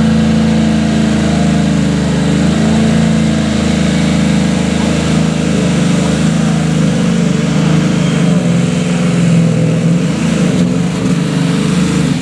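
Super stock pulling tractor's turbocharged diesel engine running loud and steady at the starting line, its note wavering a little in the second half.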